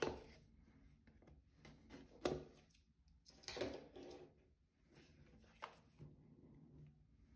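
Faint scrapes and taps of a small cardboard box being handled on a table: the tape on its back slit with a pocketknife, then the box turned over. There are a few separate sounds, with a longer rustle in the middle and a sharp tick near the end.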